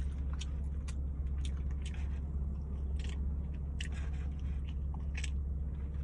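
Close mouth sounds of a person eating barbecue pork ribs: biting meat off the bone and chewing, heard as scattered short wet clicks and smacks. A steady low hum runs underneath.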